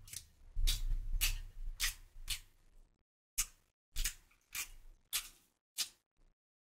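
Close-miked chewing of a mouthful of spicy loaded fries: a crisp chew about every half second, about ten in all, with a short break a little under halfway through.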